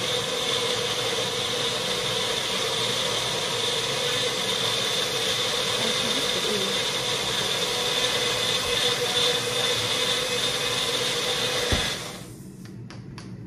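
Countertop blender running steadily while blending a smoothie, a constant motor whine over a rushing noise. It switches off about twelve seconds in, leaving a few light clicks.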